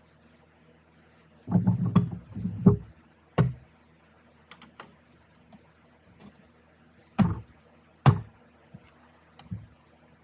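Transfer case parts knocking and clunking as they are handled and fitted during assembly. A quick cluster of knocks comes about one and a half to three seconds in, then two sharp knocks about seven and eight seconds in.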